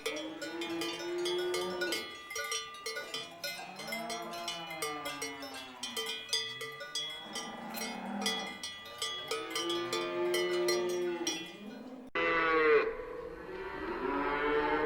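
Cattle mooing in long, arching calls while cowbells clank and ring. About twelve seconds in, the sound cuts abruptly to a louder single moo.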